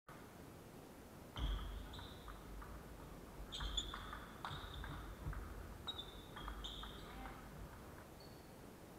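Table tennis rally: a ping-pong ball clicking back and forth off the bats and the table, a quick series of sharp ringing hits starting about a second and a half in and stopping near the end, with dull thuds of footwork under them.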